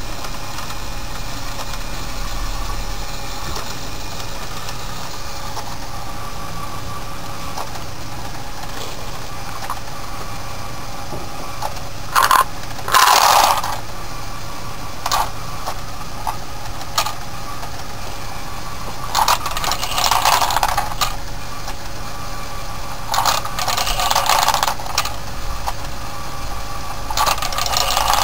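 LEGO Power Functions motor driving a Technic ball-lifting mechanism, a steady whir of gears and linkage. Four bursts of small plastic balls clattering into the bin break over it, about twelve seconds in and again at roughly 19, 23 and 27 seconds.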